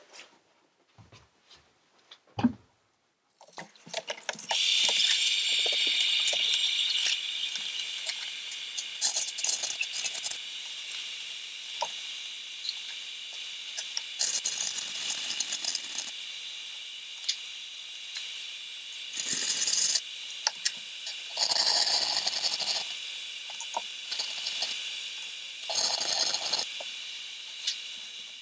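Flux-core wire-feed welder arc on a cast-iron fireplace grate: a steady high hiss with several bursts of loud crackling, each lasting a second or two. The welds on the cast iron do not hold.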